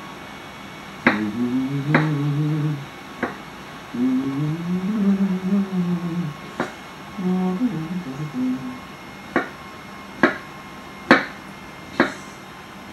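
A man humming a tune in short phrases, with a series of sharp clicks and taps, about eight in all, coming closer together in the second half.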